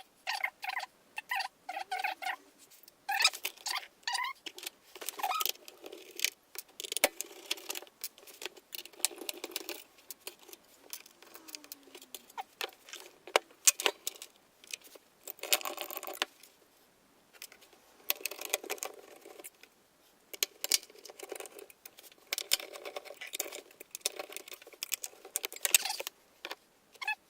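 Hard drives and metal drive trays being handled and fitted into a PC case: irregular clicks, scrapes and light metallic rattles, with a couple of short squeaks.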